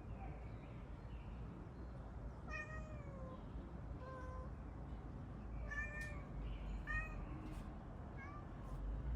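Domestic cat meowing repeatedly, about five short calls a second or so apart, several falling in pitch at the end, over a steady low rumble.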